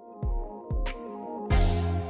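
Background music starting up: held notes with a couple of deep thumps, then a fuller, louder beat with bright cymbal-like hits coming in about a second and a half in.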